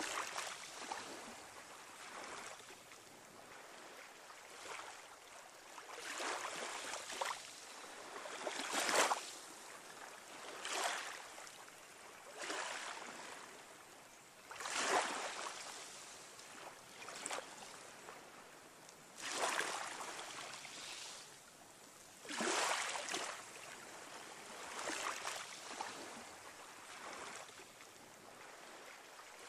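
Small waves washing in, a rush of water rising and falling every two to three seconds.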